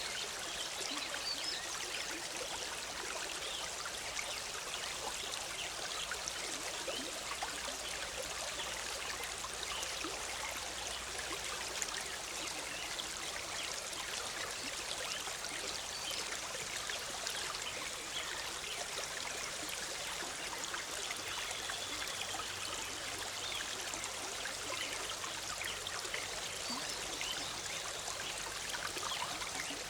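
Forest stream bubbling and trickling over rocks: a steady, even rush of water.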